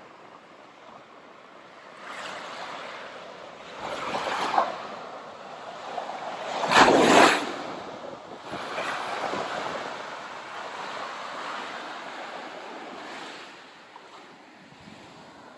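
Ocean surf breaking and washing ashore in several swells, the loudest about seven seconds in.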